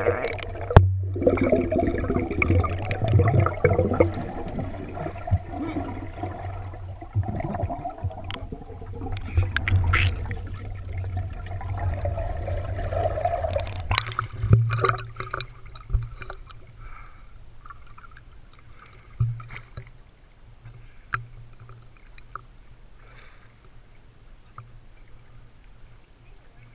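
Water sloshing and gurgling around a GoPro in its waterproof housing, heard muffled as the camera moves under water, with scattered knocks on the housing. It turns quieter about halfway through.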